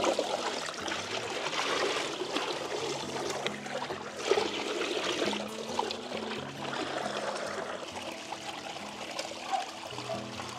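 Water trickling and pouring, a steady splashing rush with small irregular surges, under background music with sustained low notes.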